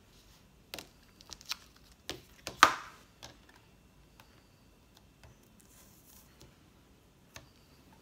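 Light clicks and taps of rubber stamps and the parts of a Stamparatus stamping platform being picked up and set down, with one sharper knock about two and a half seconds in and a last tap near the end.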